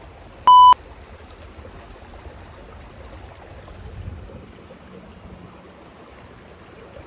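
Steady rush of running water, with one short, loud, pure beep about half a second in.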